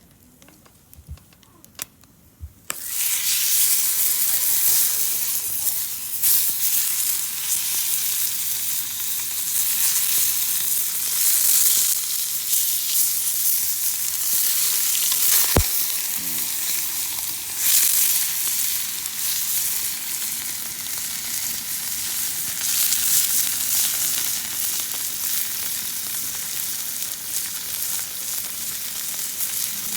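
Steak sizzling in a hot pan. The sizzle starts suddenly about three seconds in, as the meat goes down, and carries on loudly, with one sharp click about halfway through.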